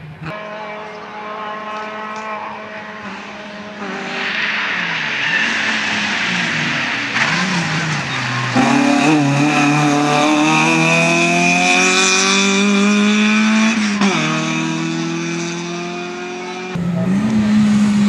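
Peugeot 106 rally car driven hard on a tarmac stage, its engine revving high and climbing in pitch through the gears, with tyre squeal as it corners. The sound jumps abruptly a couple of times between passes.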